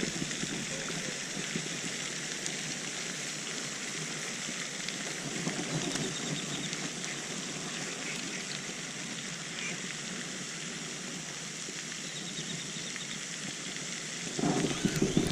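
Steady, even outdoor hiss with no clear tones. Near the end it gives way to louder, rough low rumbling, like wind buffeting the microphone.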